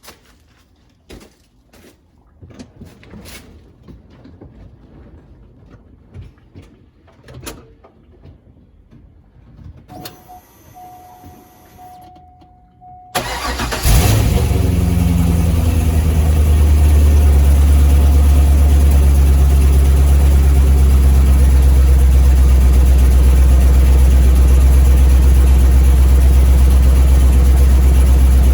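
C5 Corvette Z06's LS6 V8 cold-started: after scattered clicks and handling noises and a brief steady tone, the starter cranks about 13 seconds in, the engine catches with a loud flare and settles into a steady idle.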